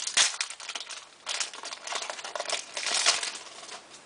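Hockey trading cards being handled and slid across one another by hand, a run of irregular rustles and scrapes that fades near the end.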